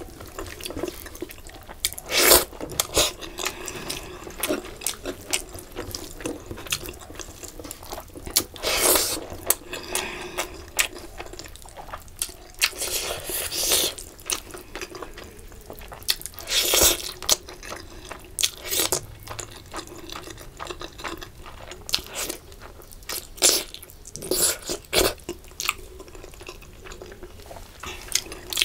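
Eating by hand: wet squelching of fingers mixing rice with fish curry, with chewing and lip smacks, heard as a run of irregular short clicks and squishes.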